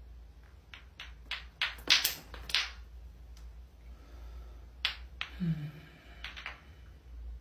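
Clacker toy balls (lato-lato) knocking together in a quick run of sharp clacks that speeds up about a second in and is loudest around two seconds in, followed by a few scattered clacks later on.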